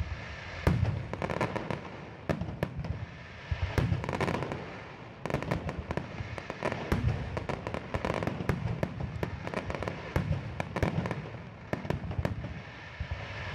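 Fireworks display: aerial shells bursting in a fast, unbroken run of bangs and crackles.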